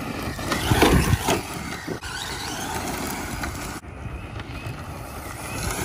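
Traxxas Slash 4x4 VXL RC car running flat out on its brushless motor, tyres crunching on gravel as it speeds away. A rushing noise is loudest about a second in and eases as the car pulls away.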